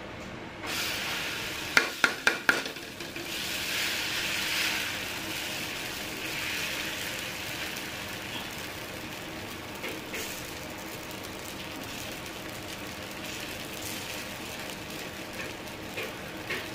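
Dosa batter sizzling on a hot iron tawa as it is spread in circles with a steel ladle. The sizzle starts suddenly under a second in and is loudest a few seconds in, with a quick run of sharp clicks near two seconds in.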